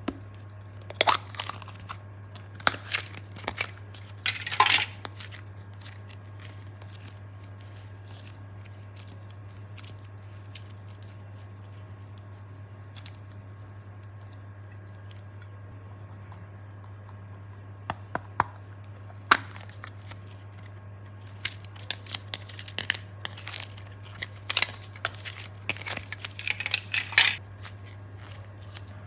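Short bursts of crinkling, crackling handling noise: a cluster in the first few seconds, then a longer run from about two-thirds of the way in, with quiet stretches between. A steady low hum runs underneath.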